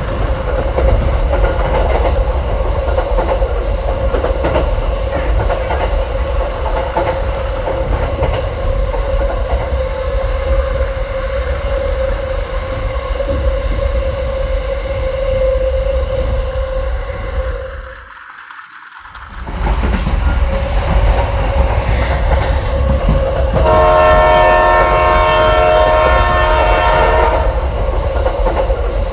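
Battery-powered toy train running on its plastic track: a steady motor whine over a low rattle from the wheels and track. The sound briefly drops away about two-thirds through, and near the end a horn sounds steadily for about four seconds.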